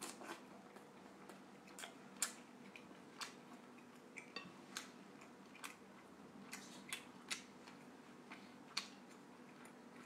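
Faint, wet mouth clicks and smacks of a person chewing a mouthful of soft braised pork, irregular and about one or two a second, over a low steady hum.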